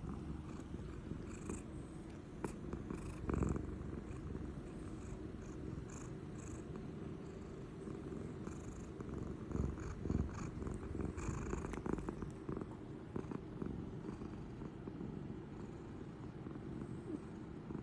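A sleeping cat snoring: a continuous low rumble, louder for a moment about three seconds in and again around ten seconds.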